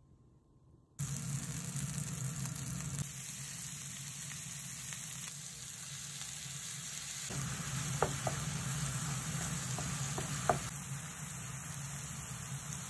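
Minced meat for Thai-style gapao frying in a non-stick pan: a steady sizzle that starts abruptly about a second in, while sauce is poured in and the meat is stirred. A few short scrapes of the spatula against the pan come about two-thirds of the way through.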